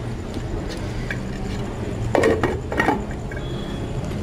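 Glass lid set down on a steel frying pan, clinking against the rim twice between two and three seconds in, with a few lighter ticks before, over a steady low hum.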